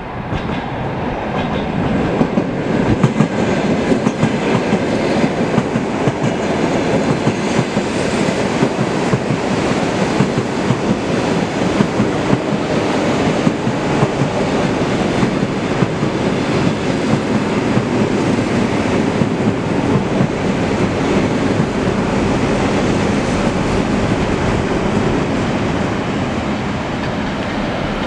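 Train running on the rails, a steady clatter of wheels over the track, building up over the first few seconds and then holding.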